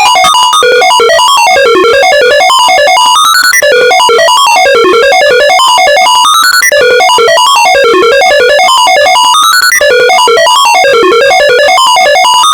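The Philippine emergency alert alarm tone, sampled and played as melody notes on a D minor scale. The pitched copies step quickly up and down in loud, harsh runs that repeat about every two seconds.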